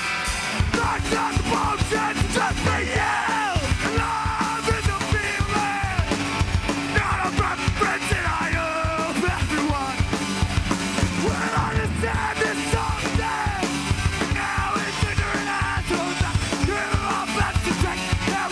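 Live punk rock band playing loud: distorted electric guitars and bass over a pounding drum kit, with yelled vocals over the top.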